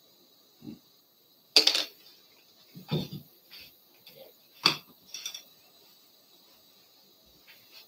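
A few sharp clicks and knocks of a paintbrush and painting things being handled and set down on the palette table. The sharpest comes about a second and a half in, another near five seconds.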